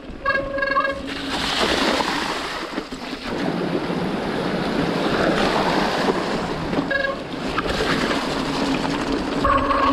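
Rushing water of a stream, a loud, even hiss. Short electronic beeps sound twice at the start, once briefly about seven seconds in, and again near the end.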